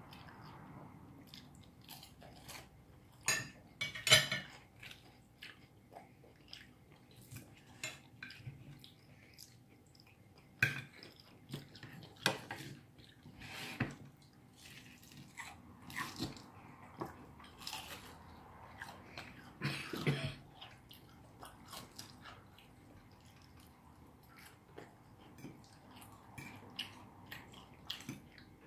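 Cutlery clinking and scraping on plates at irregular moments during a meal, with the loudest clinks about four seconds in and about twenty seconds in.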